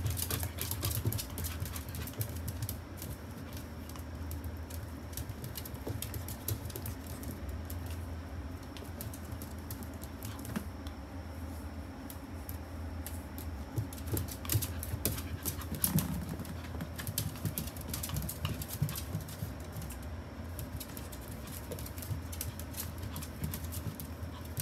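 A Pomeranian puppy's claws clicking and scrabbling on a hard wooden floor as it spins in circles chasing its tail, in quick irregular runs of ticks that thicken about two-thirds of the way through, over a steady low hum.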